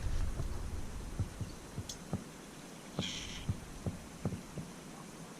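Faint, irregular soft knocks and bumps, about eight spread over a few seconds, from climbing gear and movement right at a helmet-mounted camera. A short hiss comes about three seconds in.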